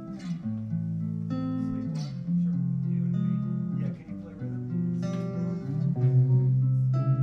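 Clean-toned electric guitar, a Telecaster, playing chords and single notes that ring on with long sustain.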